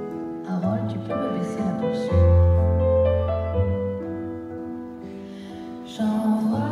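Live stage music: sustained keyboard chords changing every second or so, with a deep bass note coming in about two seconds in and the music swelling louder near the end.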